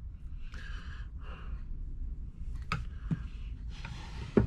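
Metal serving spoon scraping through shepherd's pie and clinking against a glass baking dish and plate, a few sharp clinks with the loudest near the end.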